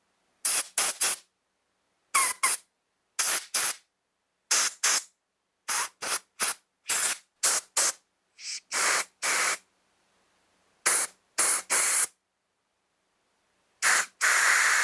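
Compressed-air blow gun firing short puffs of air through the passages and jets of a Stihl BG85 leaf blower's two-stroke carburetor, cleaning it out. The puffs come in quick clusters of two or three, with one longer blast near the end.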